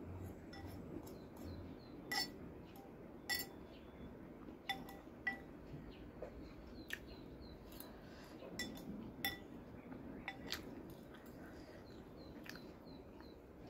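Metal spoon clinking against a ceramic bowl while eating, about nine sharp clinks at uneven intervals.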